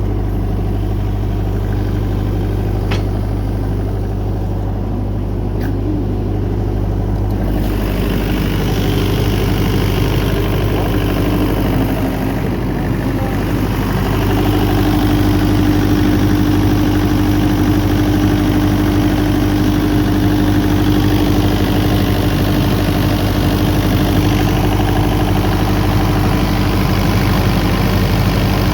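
Denyo 22 kVA diesel generator set running steadily. About eight seconds in, its sound gains more hiss, and about halfway through a steady hum grows louder.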